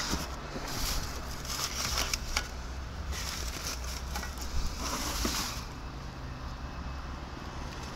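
Rustling and shuffling of plastic bags, a cushion and loose items being moved about in a car boot, in several short bursts, over a low steady hum.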